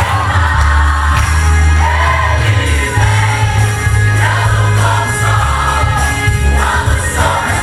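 Live gospel worship music: a band with a heavy bass line accompanying voices singing.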